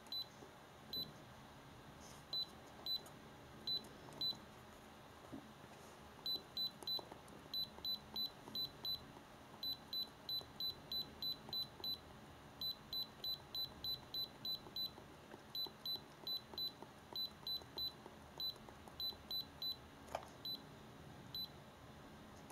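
iCarsoft i930 handheld diagnostic scanner beeping at each key press as its menu is scrolled. Many short high beeps come in quick runs of about two a second, some in close pairs.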